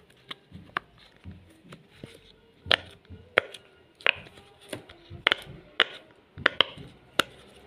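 Square rainbow silicone pop-it fidget toy having its bubbles pressed one at a time, giving a dozen or so sharp little pops at an uneven pace.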